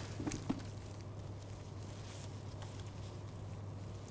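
A steady low room hum, with a few soft taps and rustles near the start from kittens moving about on towels and bedding.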